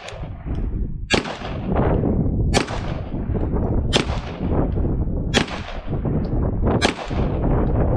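Shadow Systems DR920 9mm pistol firing slow, aimed shots: about seven sharp reports, roughly one every second and a half, each with a short ringing tail. Strong wind buffets the microphone throughout.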